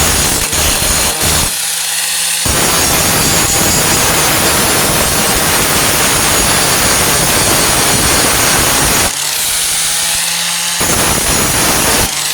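Angle grinder with a grinding disc grinding down welds on a steel tailgate patch. It is lifted off the metal twice, about a second and a half in and again about nine seconds in, and the motor is heard spinning free with a steady hum before it bites in again.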